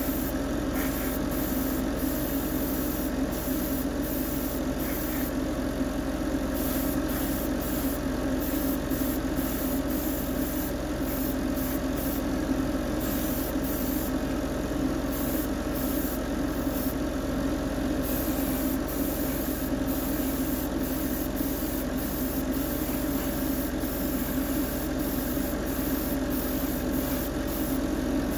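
Steady hum of a spray booth extractor fan and airbrush compressor running, with the hiss of an airbrush spraying paint.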